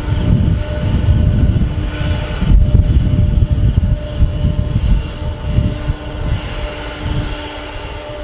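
Air India Boeing 747 jet airliner's engines running, a strong low rumble that rises and falls, with faint steady whining tones above it.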